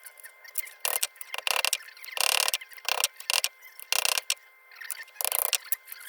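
Hand tools working the thin sheet-metal crown of a Dietz lantern: irregular short scrapes and clicks of metal on metal, a few bursts a second with pauses between.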